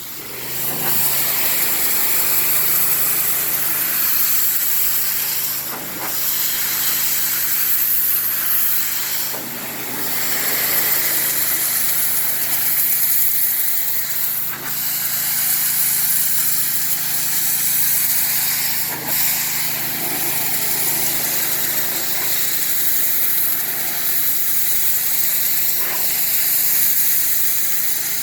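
Pressure washer spraying water with a steady hiss over its engine running, with a few brief knocks.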